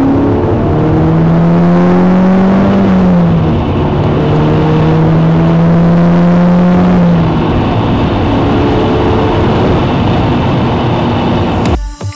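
Audi S3's turbocharged four-cylinder engine, fitted with a Revo induction kit, pulling hard: its pitch climbs, drops about three seconds in, climbs slowly again and eases off after about seven seconds. It is cut off suddenly near the end.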